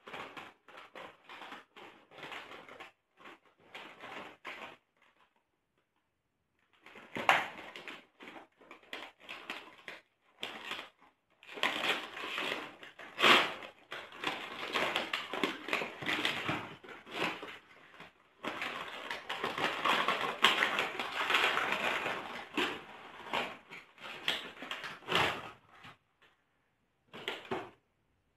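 Cookie packaging crinkling and rustling as it is handled and torn open: the bag's paper-and-plastic wrapper and the plastic tray inside, in irregular bursts of crackle that stop for about two seconds near the start and are densest through the middle.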